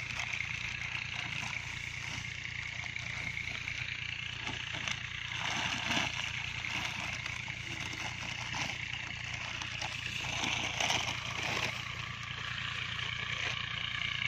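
Plastic fertiliser sack rustling and urea granules being handled and poured out, in a few irregular crackly spells, over a steady high hiss and low hum of outdoor background.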